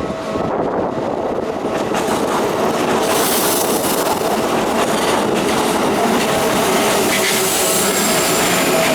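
Keikyu electric train passing through a level crossing, wheels clicking over the rail joints. The noise of the train grows louder and brighter from about three seconds in, with some wheel squeal.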